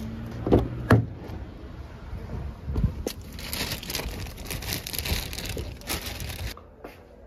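Two dull thuds about half a second and a second in, then a thin plastic bag crinkling and rustling as it is handled, from about three seconds in until it stops suddenly near the end.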